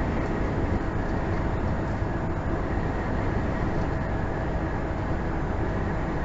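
Steady engine drone and road noise heard inside a vehicle's cab while it drives along at a constant speed, with no change in pitch or level.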